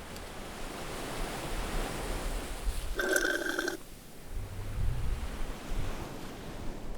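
Layered animation sound effects: a rushing, wind- or surf-like noise swelling for about three seconds, cut by a brief ringing tone lasting under a second, then low rumbles.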